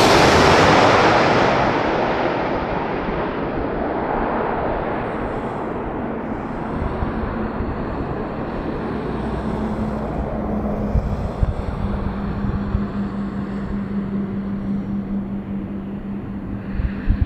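Jet airliner passing low overhead on final approach to land: its engine noise is loudest at the start, then fades and dulls as it moves away. A steady low hum comes in about halfway through.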